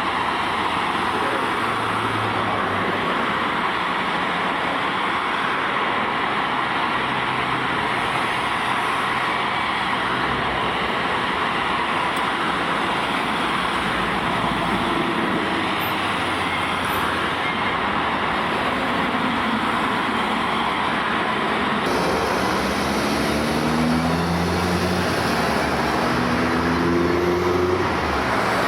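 Dense, steady traffic-like noise. In the last several seconds an engine's pitch climbs again and again in short rising runs.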